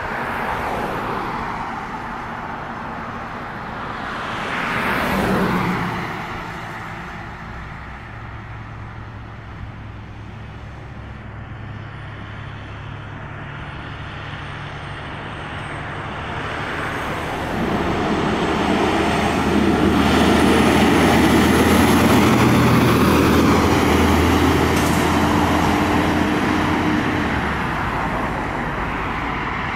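Fire tanker truck's engine running as the truck approaches slowly and drives past, getting louder from about two-thirds of the way in as it comes close, with tyre noise on the road. A brief louder swell about five seconds in.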